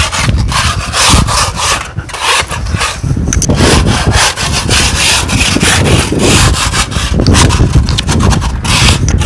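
Rough hand scraping of a surface in quick back-and-forth strokes, several a second, as the surface is brushed down to prepare it for painting.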